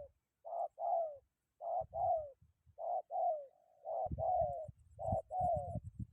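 Spotted dove (tekukur) cooing in repeated two-note phrases about once a second, the second note of each phrase sliding down. In the second half, wind buffets the microphone with low rumbling thumps.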